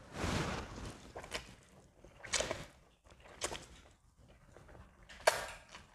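Cold noodles being slurped off chopsticks: a long slurp at the start, then shorter slurps about two and three and a half seconds in, and the loudest, sharpest one near the end.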